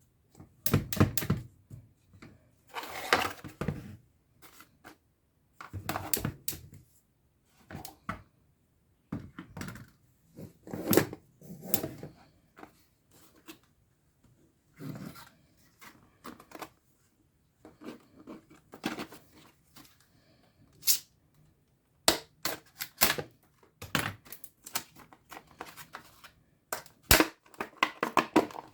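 Hands unpacking and handling a cordless LED work light and its packaging: scattered rustles, clicks and light knocks in irregular bursts with short pauses between them.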